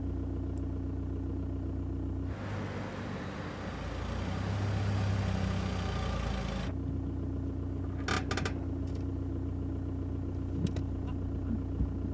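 Car driving: a steady engine and road hum heard inside the cabin. About two seconds in it gives way to the car's engine and tyres heard from outside, swelling as the car approaches. About seven seconds in the cabin hum returns, with a few light clicks.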